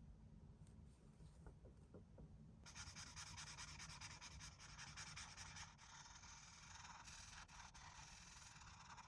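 Faint rubbing or scratching that starts about three seconds in and carries on in quick, uneven strokes, over a low hum.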